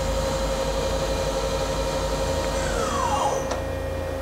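Doosan Lynx 220LMSA CNC lathe's main spindle running at 3,000 RPM with a steady whine and hum. About two and a half seconds in it spins down, its whine falling in pitch, followed by a sharp click.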